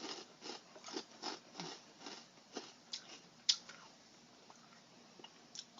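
A person chewing a mouthful of dry Oreo O's cereal, a quick irregular run of crunches that thins out to a few faint clicks after about three and a half seconds.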